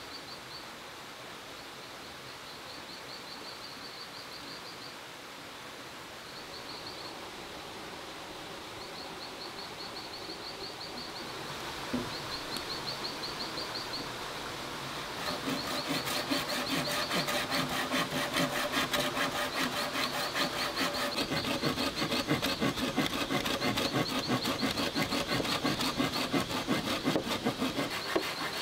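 Folding pruning saw cutting through a thick green bamboo pole in fast, steady back-and-forth strokes, starting a little past the middle. Before it, insects chirp in repeated high trains over a quiet steady hiss.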